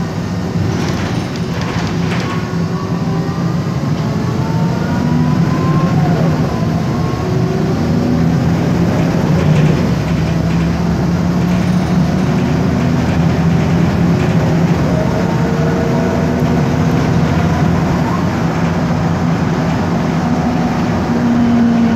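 MAN Lion's Classic city bus heard from inside the passenger cabin while under way: the MAN E2876 CNG engine runs with a steady hum, and the ZF Ecomat six-speed automatic gearbox whines in faint rising tones as the bus pulls away and gathers speed.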